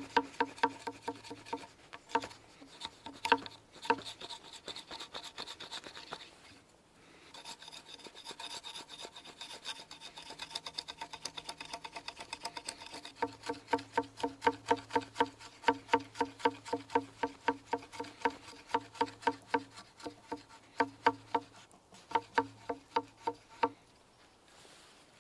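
Knife blade scraping the bark off a green wooden stick in quick repeated strokes, about three a second, with a short pause about a third of the way in.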